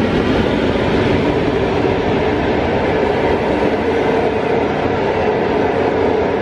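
PKP Intercity passenger train, an electric locomotive hauling coaches, passing close by across a railway bridge: a loud, steady rumble of wheels on rails.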